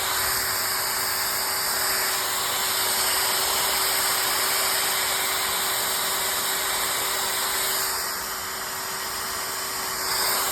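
Drain-cleaning machine running steadily on a backed-up grease trap line: a loud even hiss with a faint steady hum under it, dipping slightly about eight seconds in.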